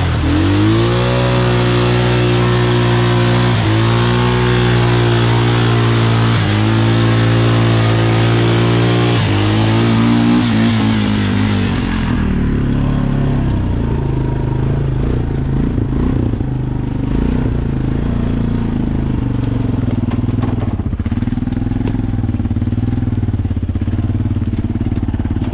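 Four-wheeler (ATV) engine revving up and running hard under load as it drives into a mud hole, with a steady rushing noise alongside. The rushing cuts off suddenly about twelve seconds in, after which the engine runs lower and unevenly.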